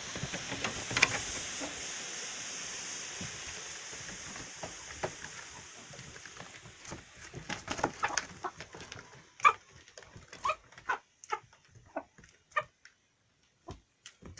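Iodine monochloride reacting with aluminium powder in an enamel bowl, a steady hiss with a few sharp crackles that dies away over the first half, the fuming reaction used to fumigate a hen house. In the second half, hens cluck in short calls.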